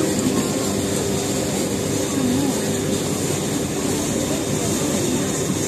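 River taxi's engine running at a steady cruise, a low even drone, with the rush of water and wind over it.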